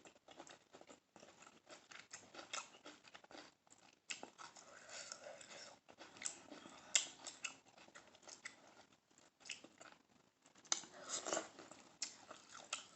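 A person chewing food close to the microphone, making irregular wet clicks and crunches of eating, with a few louder ones about seven and eleven seconds in.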